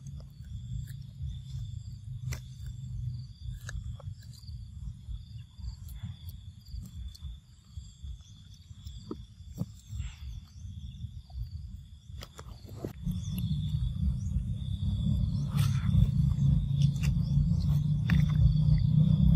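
Forest-floor ambience: a low, uneven rumble on the microphone that grows clearly louder about two-thirds of the way through, over a steady high insect buzz, with scattered small clicks and rustles of dry leaves and twigs as monkeys move about.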